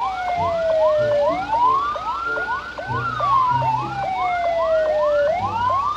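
Two electronic ambulance sirens sounding together. One is a slow wail that falls, then rises and falls again over a few seconds. The other is a fast yelp: a quick rising sweep about three times a second.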